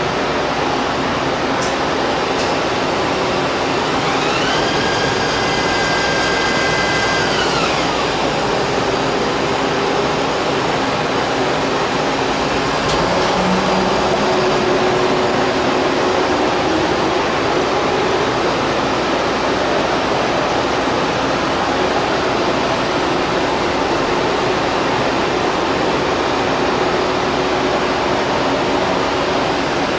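Steady, loud mechanical noise of machinery in a machine shop. A few seconds in, a whine rises in pitch, holds for about three seconds, then falls away.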